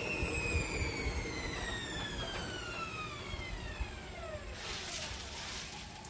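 Washing machine drum spinning down after a spin: the motor's whine falls steadily in pitch over a low rumble until the drum stops. A rushing noise comes in just before it stops.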